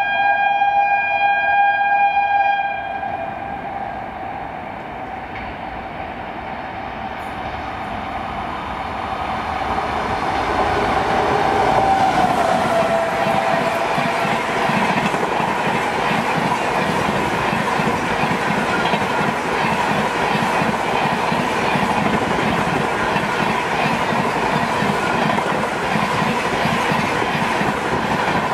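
Train horn holding a steady chord for the first two seconds or so, then an express of LHB coaches approaching at speed, with a brief horn note that falls in pitch as it passes, about twelve seconds in. The coaches then rush by with a loud, fast, even clickety-clack of wheels over the rail joints.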